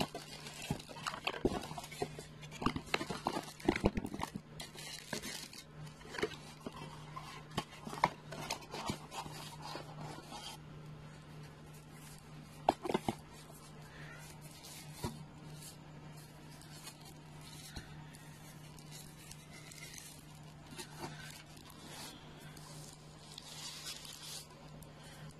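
Cardboard packaging of a TV box being handled and opened: rustling, tapping and scraping, busy for the first ten seconds and sparser after, with one sharp knock about halfway through. A steady low hum runs underneath.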